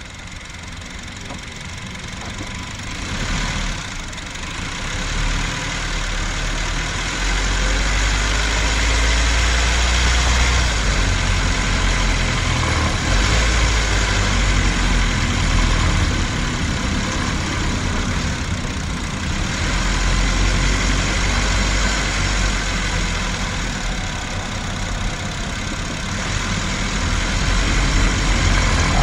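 Ninth-generation Honda Civic hatchback engine running under load on a climb, picked up close to the engine bay, with the rattling noise the car makes while climbing. It gets louder over the first several seconds, then holds, its pitch rising and falling with the revs.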